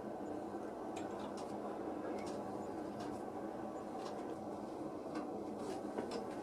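A few faint, light clicks and taps of small hard objects being handled, over a steady low background hiss.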